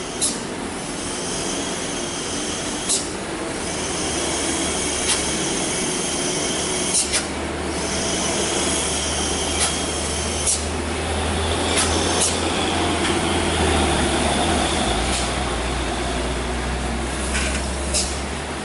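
Heavy truck's diesel engine running low and steady as it works up a steep grade, with traffic noise and short sharp clicks now and then. The engine hum grows stronger about three and a half seconds in.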